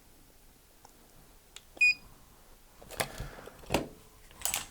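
Lyman digital trigger pull gauge giving one short electronic beep, followed by three sharp mechanical clicks from the pistol and gauge being worked for the next trigger-pull measurement.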